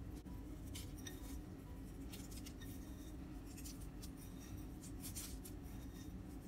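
Faint, short scratches and ticks of fingers pinching sesame and nigella seeds from a small ceramic bowl and scattering them onto soft dough balls, over a steady low hum.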